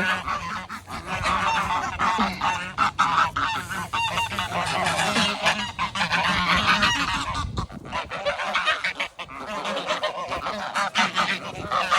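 A flock of Sebastopol geese honking and chattering, many short calls overlapping continuously.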